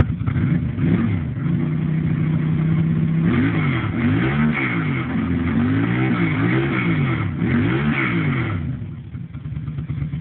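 Ducati 90-degree V-twin motorcycle engine catching and idling, then revved up and down about four times before settling back and dying away near the end.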